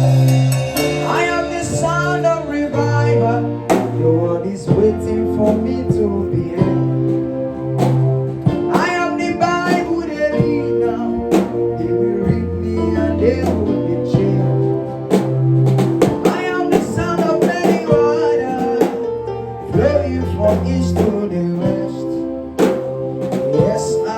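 Band music: guitar, bass and drums playing a song with a melodic lead line and singing, the bass moving to a new held note every second or two.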